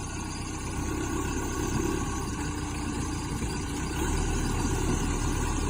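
Backhoe engine running steadily under load; about four seconds in its low note changes and it gets a little louder.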